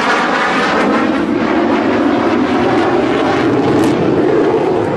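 Sukhoi Su-30MKM fighter's twin jet engines, a loud, steady roar as the jet flies a low display pass, with a sweeping, phasing quality that fades about a second in.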